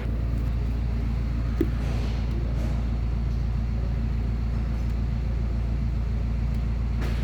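Car engine idling steadily, a low even hum, with one light click about one and a half seconds in.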